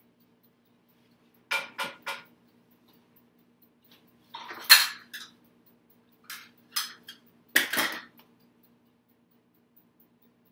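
Kitchen cookware and utensils being handled: pots, lids and spoons clink and knock in several short clusters, three quick clinks first and the loudest clatter about halfway through.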